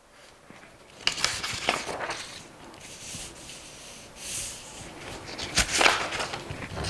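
Sheets of photocopy paper rustling and sliding across a tabletop as they are shifted and lifted by hand, in several bursts, the loudest near the end.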